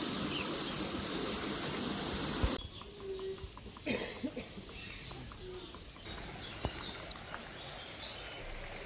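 Outdoor park ambience: a steady high insect buzz for the first two and a half seconds, then an abrupt cut to quieter background with faint bird chirps.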